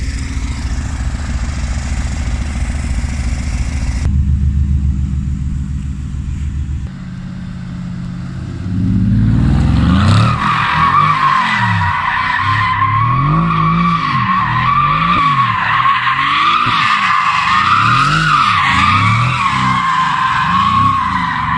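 Mercedes-AMG GT S engine running, then about nine seconds in it drifts with a continuous, wavering tyre squeal while the engine revs rise and fall over and over.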